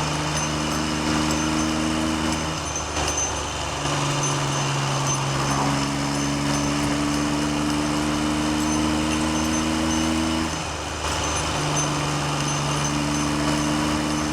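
Triumph Trident's three-cylinder engine running under way, its note holding steady, then stepping to a new pitch several times and rising slowly in the middle, over heavy wind noise on the microphone.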